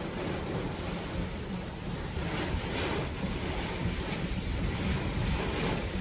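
Strong rear-flank downdraft winds of a severe thunderstorm rushing around a car, with wind noise on the microphone. The rush swells in gusts, a few times around the middle and again near the end.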